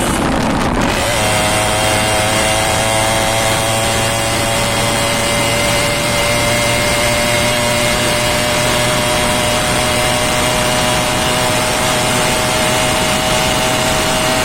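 Yamaha RX 100's two-stroke single-cylinder engine, revved and held at a steady high rpm. Its pitch drops slightly and settles about a second in, then stays constant.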